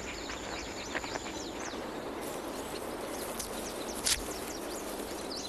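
Outdoor nature ambience: many short, high bird chirps over a steady background hiss, with one sharp click about four seconds in.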